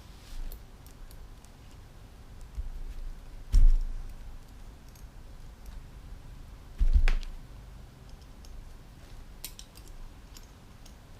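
Hand work on small metal engine parts: light metallic clicks and taps of tools and powervalve pieces being handled, with two dull thumps, one about three and a half seconds in and one about seven seconds in.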